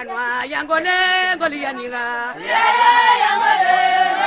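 Voices singing a traditional chant: a lead voice at first, with a fuller, louder chorus of voices coming in about halfway through.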